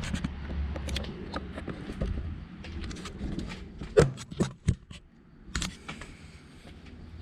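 Hands handling small hard parts: a string of clicks and knocks with light scraping, the sharpest knocks about four to six seconds in.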